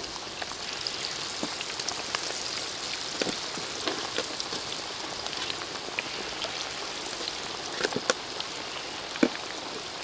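Battered chicken wings deep-frying in hot oil in a large wok: a steady sizzle with scattered pops and crackles.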